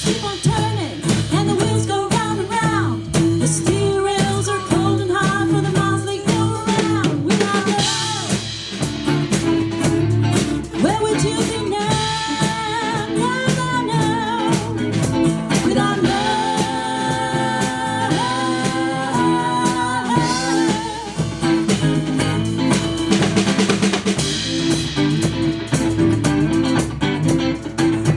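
Live band playing with a drum kit keeping a steady beat of snare and bass drum under a bass line and a held, gliding lead melody.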